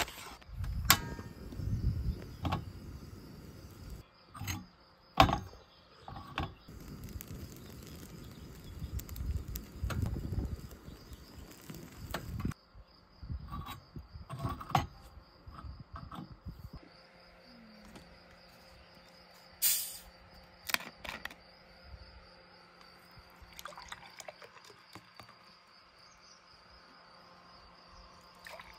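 Insects chirping steadily in a fast, even pulse. Over the first twelve seconds or so this is mixed with handling noise: rustling of a plastic snack bag being opened and several sharp knocks. After that it is quieter, with only scattered clicks.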